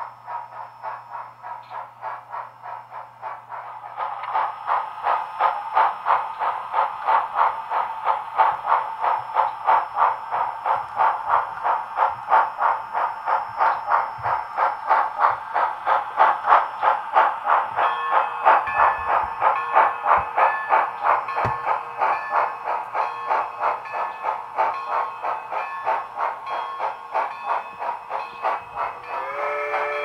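Model steam locomotive's sound system chuffing in a steady rhythm of about two to three beats a second, louder from about four seconds in. A repeated ringing tone joins about two-thirds of the way through, and a steam whistle starts blowing just before the end.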